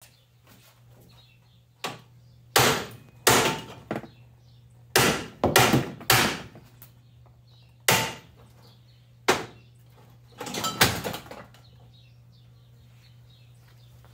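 Hammer blows on a riveted steel cutter section of a Ford 515 sickle bar mower knife, shearing off the section's rivets. There are about nine sharp strikes spread unevenly over ten seconds, several in quick succession just after the middle, each dying away briefly.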